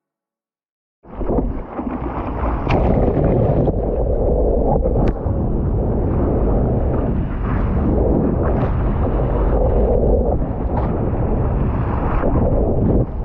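Loud wind buffeting the microphone over rushing surf, starting abruptly about a second in, with scattered sharp splashes or knocks.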